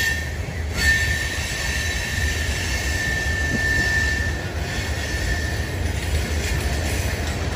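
Freight train cars rolling through a curve, with a steady high-pitched wheel squeal over a low rumble. The squeal breaks off briefly about half a second in and fades after about four seconds.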